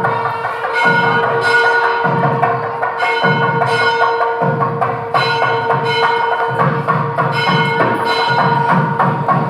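Background music with bell-like ringing tones over a repeating percussion beat.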